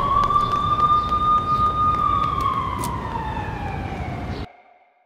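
A siren wailing in one slow rise and fall of pitch over constant street noise. The sound cuts off suddenly about four and a half seconds in.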